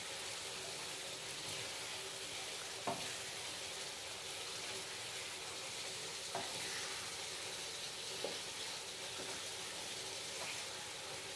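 Macaroni and cheese sizzling softly in a frying pan over a low gas flame while a wooden spatula stirs it, the spatula knocking against the pan a few times.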